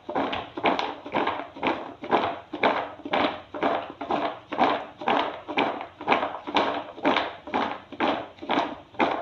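Raw peanuts rolling in flour in a bowl that is shaken back and forth to coat them, a swishing rattle about twice a second in a steady rhythm.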